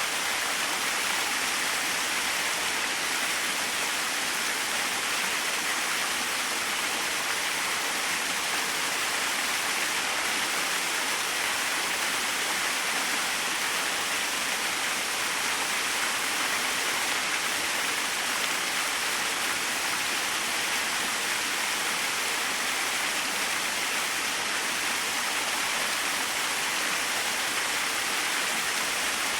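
Small jungle waterfall splashing steadily, an even hiss of falling water with no breaks or changes.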